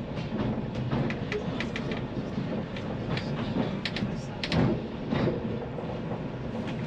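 Narrow-gauge steam train heard from inside its wooden-bodied carriage while on the move: a steady rumble of wheels on rail, broken by frequent short, irregular clicks and knocks.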